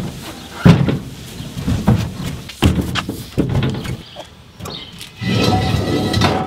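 Tyres on steel wheels thumping down into a pickup's bed several times, one after another. About five seconds in, a bare steel wheel rim clanks and rings as it is handled on the tailgate.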